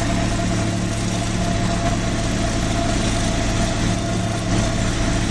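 Hydraulic vibratory pile hammer running with a steady low hum, shaking a pile to pull it out of the ground, together with the diesel power unit that drives it.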